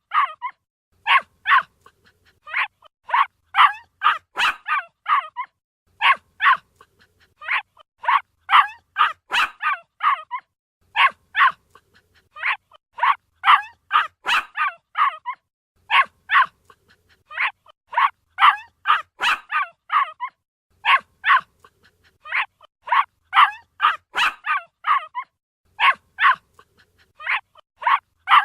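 A puppy barking: high-pitched yips, several quick ones a second, in short bursts separated by brief pauses.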